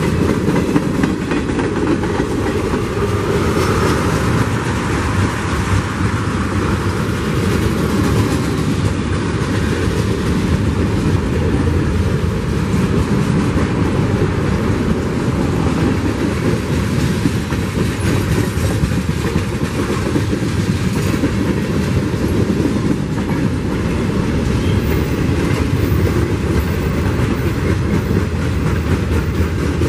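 Freight train cars rolling past: a steady rumble and clatter of steel wheels on the rails, unbroken throughout.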